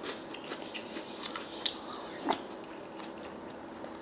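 Close-miked chewing of a mouthful of baguette, with short wet mouth clicks and smacks, several in the first two seconds and thinning out after that.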